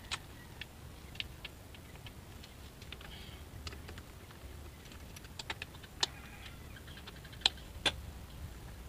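Small, scattered metallic clicks and taps from an 8 mm socket wrench turning out the bolts of a scooter's CVT cover, with a few sharper clicks in the second half.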